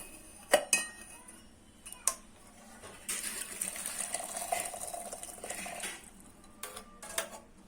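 Metal utensils clinking against a steel cooking pot as the boiled kadha is ladled out into a bowl: a few sharp clinks, a steadier stretch of about three seconds in the middle, then two more clinks near the end.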